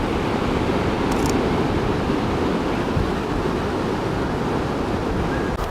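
Steady wash of ocean surf, with wind noise on the microphone.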